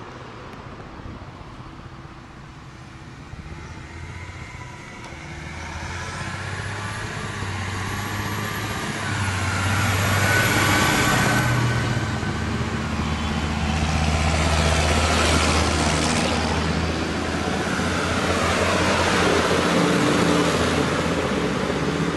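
Tractors driving past one after another, their engines getting louder over the first ten seconds and then staying loud, with swells as each one goes by.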